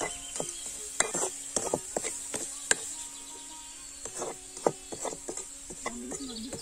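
A wooden-handled ladle stirring and scraping chopped onions and spices around a metal pan, in irregular knocks and scrapes. A steady high insect drone runs behind.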